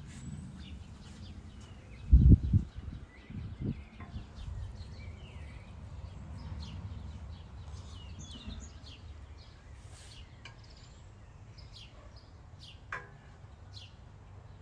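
Small birds chirping in short, scattered calls over a steady low outdoor rumble, with a loud low thump about two seconds in and a sharp click near the end.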